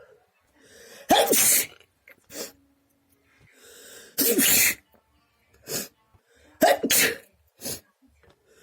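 A person sneezing repeatedly: three full, voiced sneezes about three seconds apart, each preceded by a short indrawn breath, with smaller short bursts in between.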